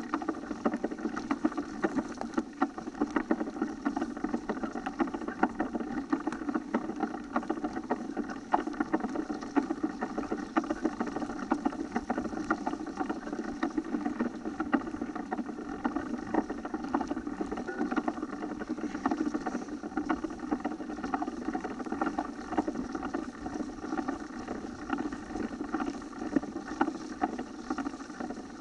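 Mountain bike rolling fast over a bumpy, leaf-covered dirt forest track: steady tyre rumble with constant irregular rattling and clattering from the bike as it runs over the rough ground.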